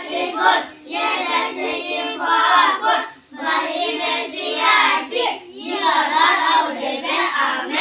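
A group of children singing a prayer together in unison, a grace before their meal, in phrases with short pauses for breath about a second in and about three seconds in.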